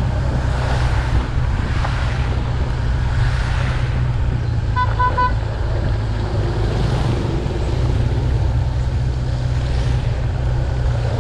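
Steady low wind rumble and road hiss of a motor scooter ride through water, swelling and fading. About five seconds in, a vehicle horn beeps three times in quick succession.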